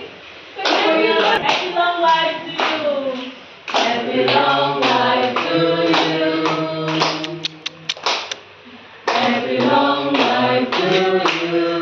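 A group of people singing a birthday song together in phrases, with short breaks between lines. Hand claps stand out about seven to eight seconds in.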